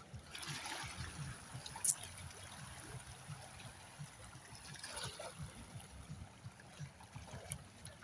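Shallow seawater washing and trickling over rocks, swelling about half a second in and again around five seconds, with a sharp click near two seconds.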